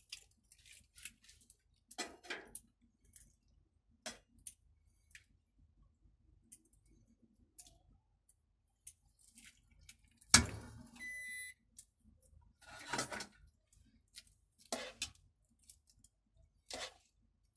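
Scattered light clicks and knocks of metal kitchen utensils being handled, with one sharp metallic clank about ten seconds in that rings briefly.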